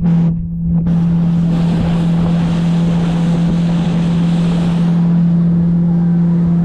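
Motorboat engine running at a steady pitch, with wind on the microphone and the rush of water.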